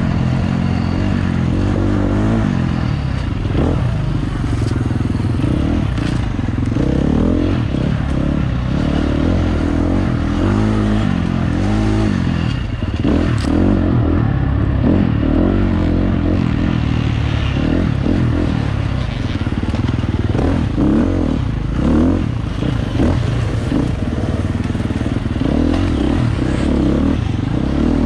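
Off-road dirt bike engine running hard, its pitch rising and falling over and over as the throttle is worked, with scattered knocks and clatter.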